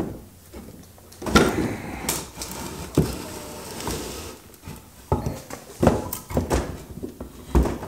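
A bare Honda CRF300L engine being set down, lifted and shifted about on a wooden box stand. Several knocks of metal casing on wood, with scraping and rustling between them.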